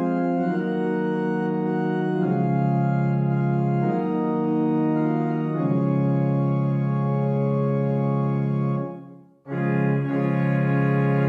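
GrandOrgue virtual pipe organ played on manuals only, with no pedals, holding slow sustained chords that change every second or two. About nine seconds in the chord is released and dies away, and the playing starts again half a second later.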